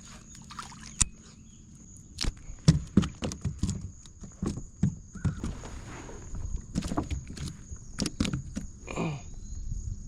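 Irregular knocks, thumps and rattles on a kayak hull and gear while a small caught fish is handled and unhooked. A faint steady high-pitched tone runs underneath.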